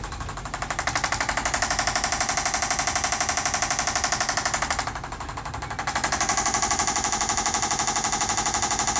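Vibracussor percussion massager hammering rapidly and evenly on the hip muscles. It eases off for about a second around five seconds in, then picks up again at full strength.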